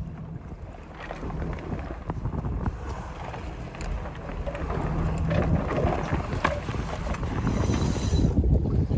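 Wind buffeting the microphone on a sailboat, over the steady hum of its engine, with scattered clicks and rattles of the mast winch and halyards as the mainsail is hoisted.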